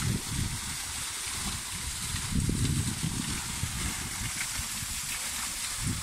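Small waterfall falling onto rock and into a pool: a steady hiss of splashing water, with uneven low rumbling underneath.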